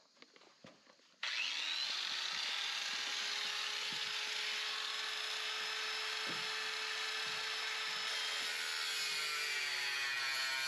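A handheld cordless power tool cutting through sheet-metal drip edge. It starts abruptly about a second in, its motor spinning up, then runs steadily with a harsh, hissing cutting noise over a held motor tone.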